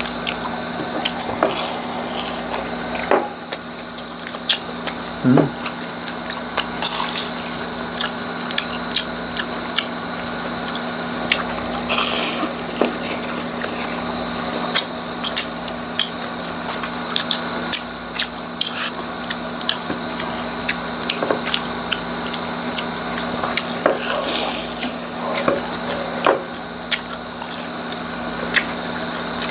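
Close-miked crunching, crackling and chewing as crisp deep-fried chicharong bulaklak (pork mesentery) is torn apart by hand and bitten, with many small sharp crackles throughout. A faint steady hum runs underneath.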